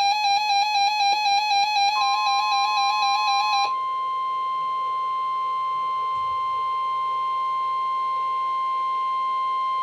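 AcuRite 8550 weather radio's buzzy, pulsing alarm beep, which stops about four seconds in. From about two seconds in it is overlapped by the steady 1050 Hz NOAA Weather Radio warning alarm tone, broadcast for the Required Weekly Test.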